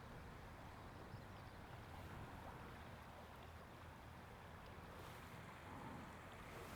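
Near silence: faint, steady outdoor background hiss with a low rumble underneath.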